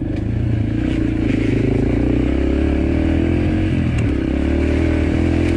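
Dirt bike engine running steadily as the bike is ridden along a rough dirt trail. The engine note dips briefly about four seconds in, then picks back up.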